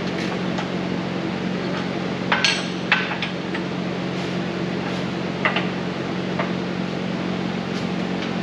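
Sharp metal clanks and knocks of heavy steel parts being handled at a 50-ton shop press as its bed is lowered one pin hole, several together about two to three seconds in and lighter ones later. A steady hum runs underneath.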